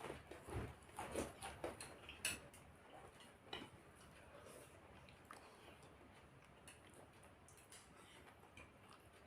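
Faint eating sounds at a meal: soft clicks and taps of a spoon on a plate and mouth noises, clustered in the first few seconds.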